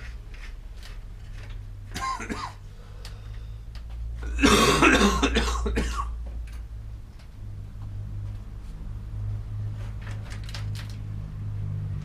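A man coughing and clearing his throat: a short rasp about two seconds in, then a louder, longer cough lasting over a second from about halfway through. Light clicks and taps are scattered around it over a steady low hum.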